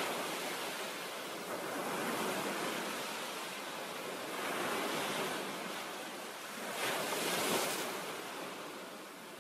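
Ocean waves washing in, the surf swelling and falling back about three times.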